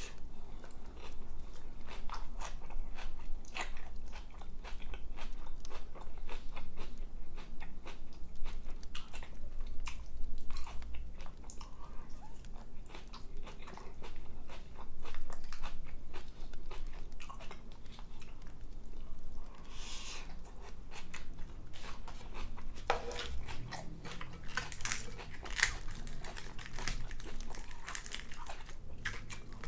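Close-miked chewing and mouth sounds of a person eating baked macaroni and cheese, a steady run of wet smacks and clicks that grows sharper and denser in the last few seconds.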